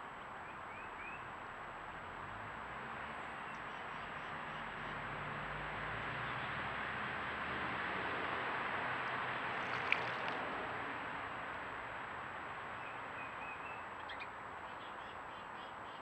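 A distant vehicle passing, a broad noise that slowly swells to a peak around the middle and fades away again, with a single sharp click about ten seconds in. Faint small-bird chirps near the start and again near the end.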